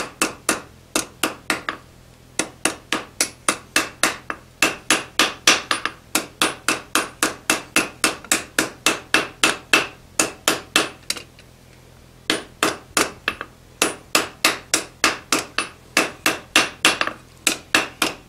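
Hand hammer striking a mild-steel bar held in tongs on an anvil, about four quick blows a second in runs broken by a few short pauses, beveling the corners of the bar.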